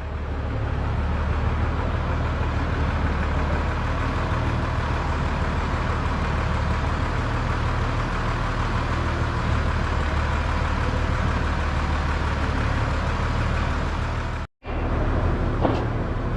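A steady machine or engine running with a low drone. It cuts off abruptly near the end, and a couple of clicks follow.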